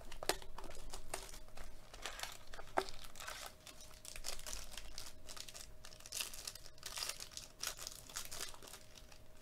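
Foil wrapper of a 2022 Topps Museum Collection baseball card pack crinkling as it is handled and torn open: a run of irregular crackles and rustles.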